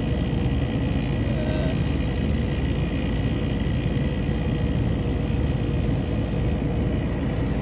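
Commercial HVAC equipment running: a steady hum and rush of fans and compressor, with several constant tones on top.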